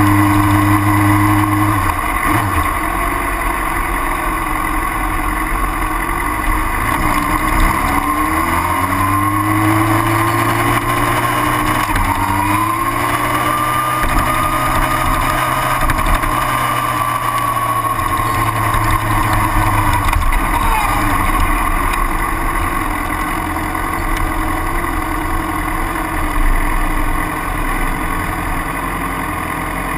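A vehicle's engine heard from on board at low speed, over steady wind and road noise. Its hum rises in pitch twice as it accelerates, about 7 and 12 seconds in, holds, then falls away after about 20 seconds as it slows.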